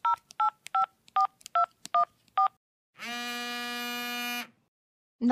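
Phone call being dialled: seven touch-tone keypad beeps about two-fifths of a second apart, then one buzzy ringing tone lasting about a second and a half as the call rings through.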